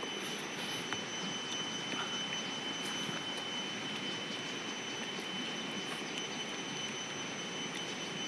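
Steady rush of flowing river water, with a thin, steady high-pitched tone above it and a few faint ticks.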